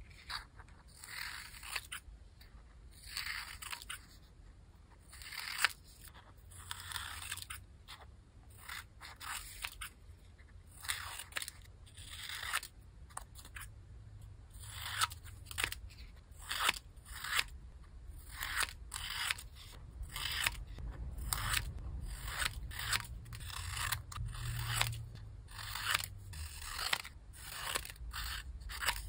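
Scissors cutting paper cards: a series of crisp, rasping snips, each one a short stroke, coming quicker and shorter from about halfway through.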